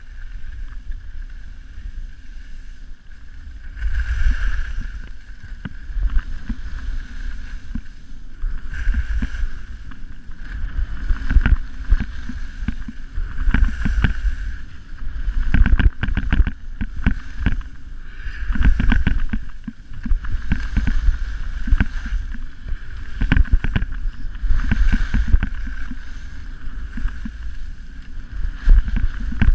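Skis running on packed snow, the edges hissing and scraping in surges that rise and fall every second or two with each turn, while wind rumbles on the action camera's microphone.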